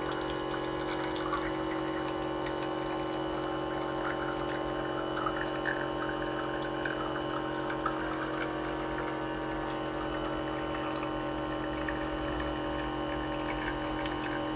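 Outin Nano and Conqueco portable espresso machines brewing side by side: their pumps run with a steady hum of several fixed tones while espresso trickles and drips into glass cups, the trickle thinning out after the first half.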